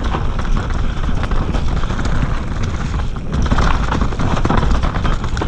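Mountain bike descending a dirt trail at speed: tyres rolling over dirt and dry leaves, with frequent knocks and rattles from the bike over bumps and a steady rumble of wind on the microphone.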